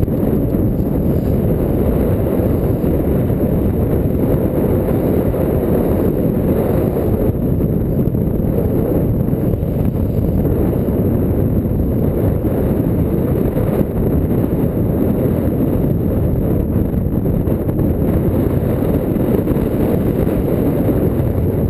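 Loud, steady low rumble of wind buffeting the microphone, unbroken throughout.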